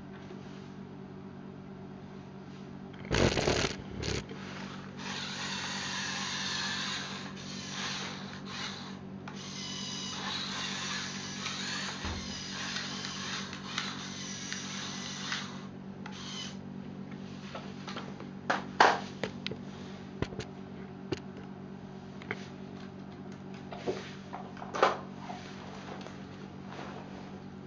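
Small electric motors of a LEGO Technic RC truck whirring in spells, with a loud clatter about three seconds in. In the second half, scattered clicks and knocks of plastic LEGO parts being handled.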